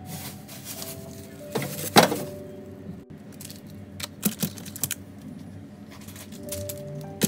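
Plastic grocery packaging being set onto a refrigerator's wire shelf: a sharp clack about two seconds in, then a few lighter knocks and crinkles around four to five seconds in. Soft background music with held notes plays underneath.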